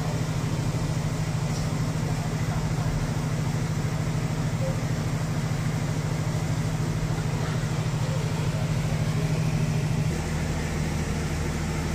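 Diesel engine idling steadily, a constant low hum with fast even pulsing. Its lowest part shifts a little about ten seconds in.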